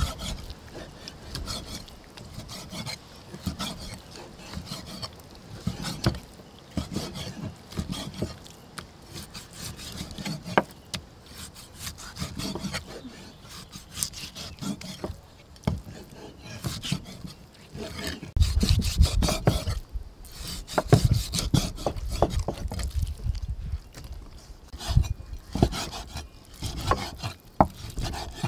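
Cleaver slicing raw pork on a wooden chopping block: irregular strokes of the blade cutting through the meat, scraping and tapping on the wood. For a couple of seconds about two-thirds of the way in the strokes come heavier and louder.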